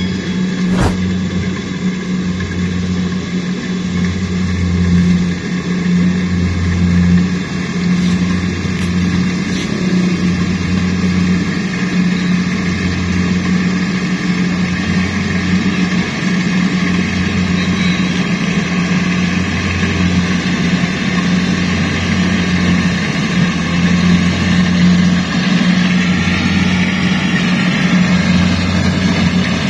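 Yanmar combine harvester's engine running steadily at work in a rice field. Its low hum swells and fades every second or two, with a couple of sharp clicks about a second in.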